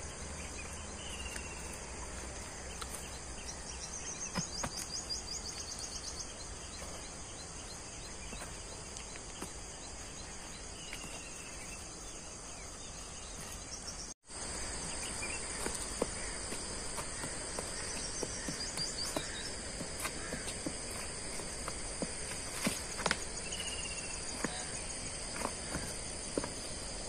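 Insects chirping in a steady high-pitched outdoor chorus, with faint scattered clicks. The sound cuts out for an instant about halfway through.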